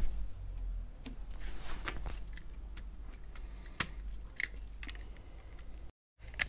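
Handling noise from a handheld pole-mounted camera: a low rumble with scattered clicks, scuffs and rustles as it is moved. The sound drops out for a moment near the end.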